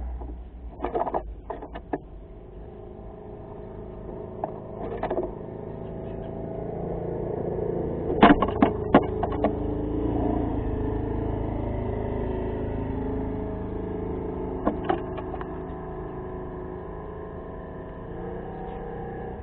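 Sharp clicks and knocks of a common myna's bill and feet on a wooden nest box, a cluster of them about eight to nine seconds in, over a steady engine-like hum that swells for the first ten seconds and then slowly fades.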